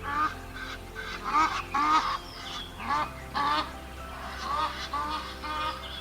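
Birds calling: a rapid run of short, nasal, honking calls, several overlapping, over quiet background music with a low drone.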